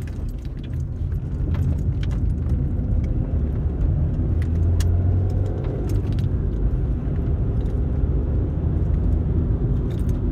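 Car driving at road speed, heard from inside the cabin: a steady low rumble of engine and tyres, with scattered light clicks and rattles.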